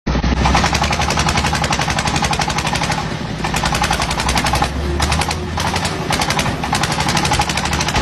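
A machine engine running with a rapid, even clatter over a low steady hum. The high part of the clatter briefly thins out twice, about three and five seconds in.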